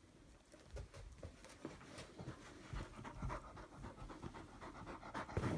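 A black Labrador panting quickly close by, starting about half a second in, with a few soft low thumps among the breaths.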